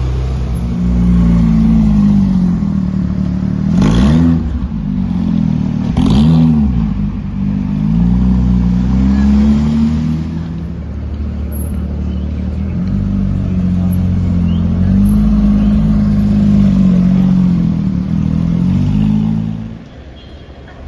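Ferrari 458 Italia's naturally aspirated V8 being revved while stationary: the engine note swells up and down again and again, with two sharp blips about four and six seconds in. The sound cuts off abruptly near the end.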